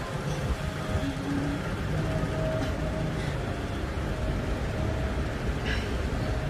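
Steady low rumble with a hiss over it, like traffic or a fan in the background, with no speech.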